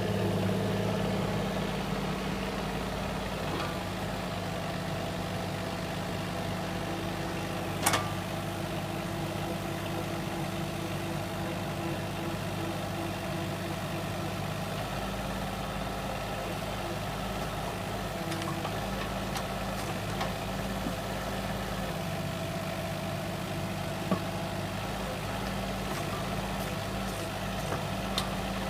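Heavy construction machine's engine running steadily at a low hum, with one sharp knock about eight seconds in and a smaller click later on.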